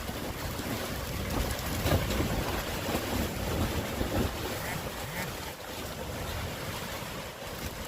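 Strong gusty wind rushing and buffeting the microphone with a deep rumble, swelling in gusts about two and four seconds in and easing a little in the second half.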